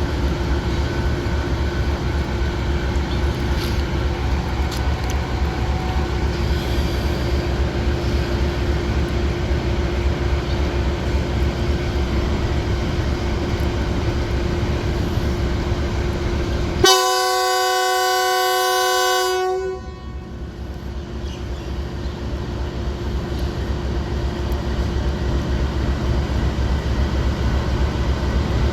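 Departing diesel railcar running with a steady low rumble, and a single horn blast about 17 seconds in that lasts around three seconds and cuts off sharply.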